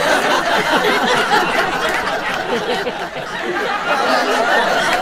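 A seated audience laughing together, many voices overlapping in a steady wash of laughter.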